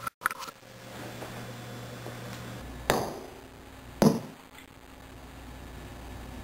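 A ping-pong ball striking hard surfaces: two sharp knocks about a second apart, the second the loudest, followed by a few faint ticks.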